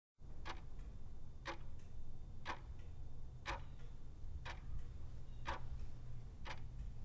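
Clock ticking steadily about once a second, like a quiz countdown timer, with fainter clicks between the ticks and a low hum underneath.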